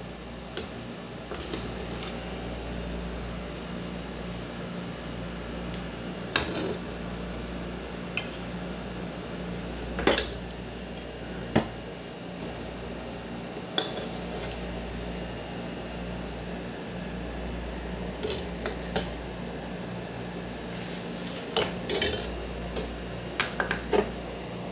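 Metal ladle working hot milk in a metal saucepan, clinking sharply against the pot about a dozen times at irregular intervals. A steady low hum runs underneath.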